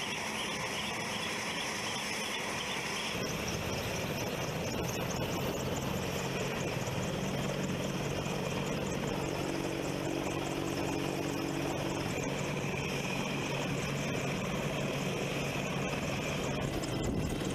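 AH-64 Apache attack helicopter running on the ground. Its twin T700 turboshaft engines whine steadily while the main rotor turns.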